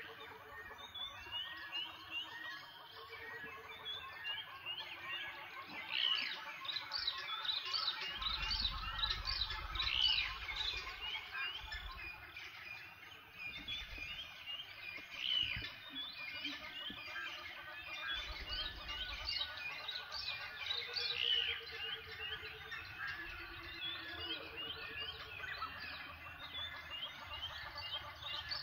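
Dense chorus of many wild birds chirping, whistling and calling over one another, with a low rumble twice, about eight and eighteen seconds in.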